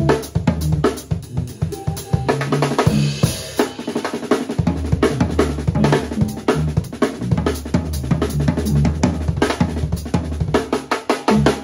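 Live drum kit solo: rapid, busy strokes on snare and kick drum with hi-hat, played loud.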